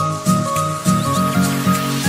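Background music: a quick melody of short notes over lower sustained notes, with a steady beat.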